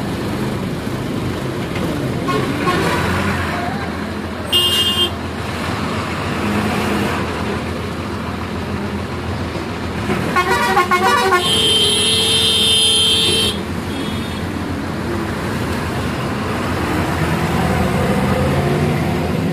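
Bus engines and heavy road traffic heard from a moving bus's open doorway, with vehicle horns: a short toot about four and a half seconds in and a long horn blast of nearly two seconds about twelve seconds in.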